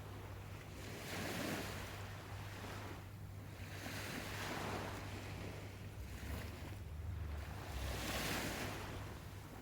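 Waves washing ashore, the surf rising and falling in repeated swells a few seconds apart, over a steady low hum.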